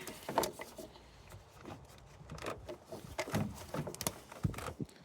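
Light clicks, knocks and rattles of parts being handled and moved about in an engine bay, the louder knocks scattered irregularly.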